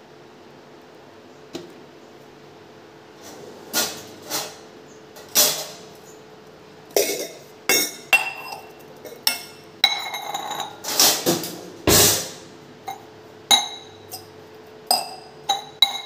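Stainless steel kitchen vessels, a bowl and tumblers, knocking and clinking against each other and the stone counter. The knocks come irregularly after a quiet first few seconds, and several leave a short metallic ring.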